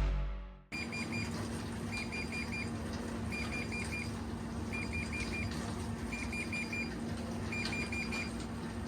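Bosch Series 8 tumble dryer beeping an error alarm: quick groups of four short high beeps, repeating about every second and a half over a steady low electrical hum. This is the signal for error E:00-90, a motor or motor-control board fault. Intro music fades out just before the beeping begins.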